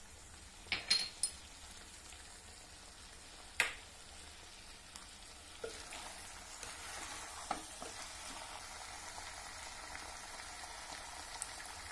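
Chicken pieces and onions sizzling faintly as they fry in a pot, with a few sharp clicks and knocks of a spoon against the pot as the turmeric and chilli are stirred in. The sizzle grows a little louder about halfway through as the pieces are turned over.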